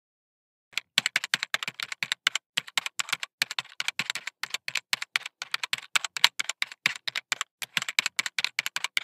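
Typing on a computer keyboard: a fast, uneven run of keystroke clicks, several a second, starting just under a second in.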